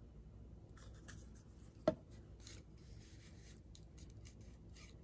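Paintbrush strokes spreading Mod Podge glue over a painted plaque: faint, short, repeated brushing rubs, with one sharp click about two seconds in.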